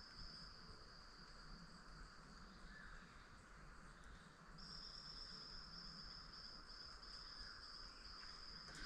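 Faint forest ambience: an insect's steady high-pitched trill that weakens about three seconds in and comes back clearly about four and a half seconds in, over a soft hiss of more distant insects.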